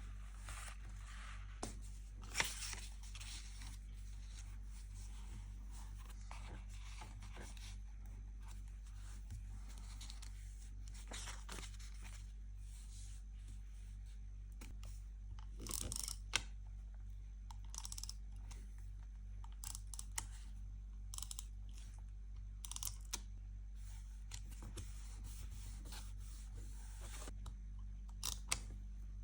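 Paper crafting sounds from journal decorating: short, scattered tearing and scraping of paper and tape, the strongest about two seconds in and again past halfway, over a steady low hum.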